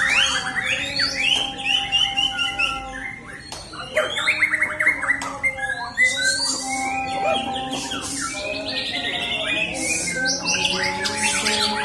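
White-rumped shama (murai batu) singing a varied song of clear whistles, fast trills and harsh notes, with other birdsong overlapping it.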